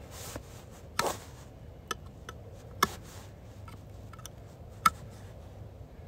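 Light metal clicks and scraping of a hand tool picking packed wood chips out of an Echo 7310 chainsaw's clutch and sprocket area, with a few sharper ticks spread a second or two apart. The chips have gummed it up so the sprocket barely turns.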